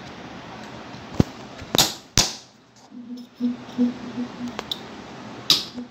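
Four sharp metal strikes: a steel punch hit against the stop-motion knob on a sewing machine's hand wheel to tighten it fully. Three come close together between about one and two seconds in, and one comes near the end.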